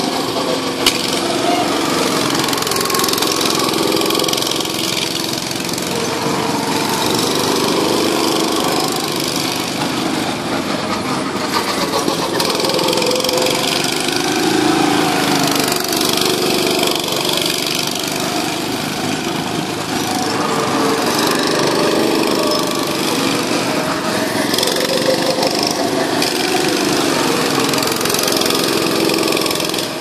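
Small go-kart engines running continuously as several karts lap the track. Their pitch rises and falls as the karts speed up, slow down and pass by.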